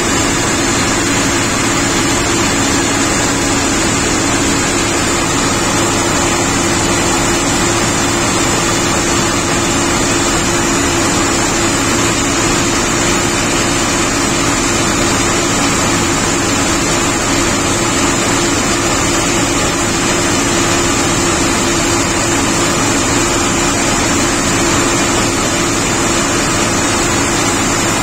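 A combine harvester fitted with a Berdyansk (John Greaves) corn header runs steadily on the header's first start-up. The sound is an unchanging mechanical hum with a high whine above it.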